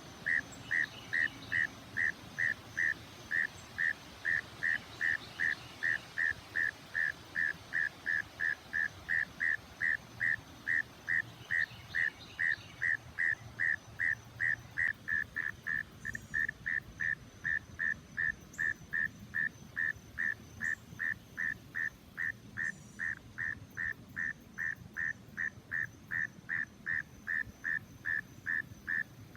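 A frog calling: one short, clear note repeated steadily, about two and a half times a second.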